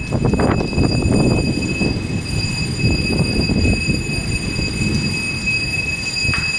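Strong storm wind buffeting the phone's microphone: a loud, low, gusting rumble that rises and falls unevenly.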